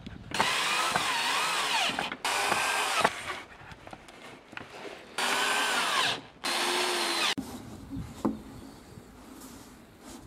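Cordless drill running into a small wooden box in four short bursts, its motor pitch dipping and recovering as the bit loads in the wood. A few light knocks follow near the end.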